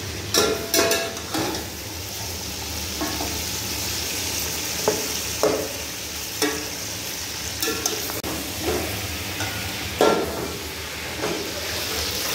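Chicken pieces sizzling as they fry in oil with browned onions in a metal pot, with a steady hiss. A metal spatula scrapes and knocks against the pot now and then as the chicken is stirred.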